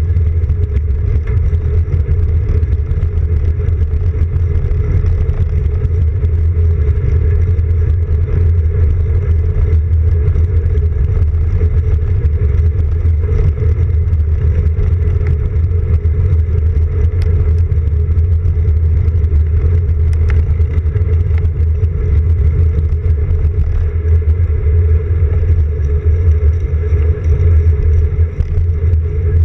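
Loud, steady low rumble of wind on the microphone and tyres rolling on asphalt, picked up by a camera mounted on a road bike's handlebars while riding.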